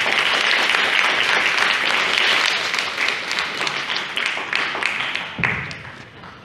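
Audience applauding: dense clapping that thins and dies away about five to six seconds in.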